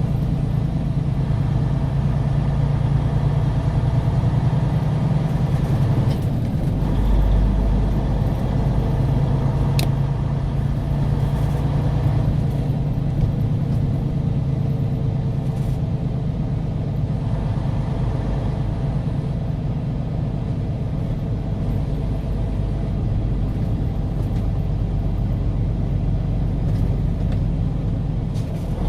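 Steady road and engine noise heard inside a moving car: a constant low rumble that gets a little deeper about seven seconds in.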